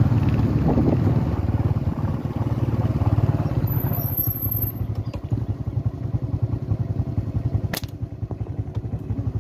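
Small engine running steadily with a fast, even pulse, louder in the first few seconds, and a sharp click about eight seconds in.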